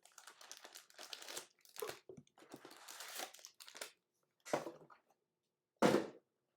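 Plastic wrapping crinkling and tearing as a trading card box and its packs are ripped open, with two sharper, louder handling noises in the second half, the last the loudest.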